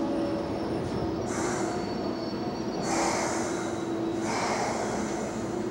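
Electric subway train standing at the platform with a steady hum, and three sharp hisses of compressed air about a second apart as its doors open, the middle one the loudest.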